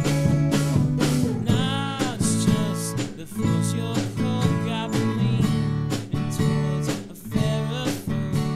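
A small band playing live: strummed acoustic guitar with electric guitar and a steady drum beat, and a voice singing over it.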